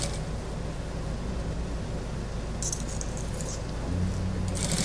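Industrial sewing machine stitching in two short runs, one a little past halfway and one near the end, over a steady low hum.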